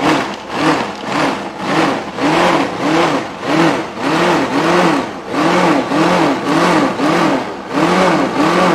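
Food processor running, blending a pesto of greens, almonds and olive oil. The motor's pitch rises and falls about twice a second, and it winds down at the very end.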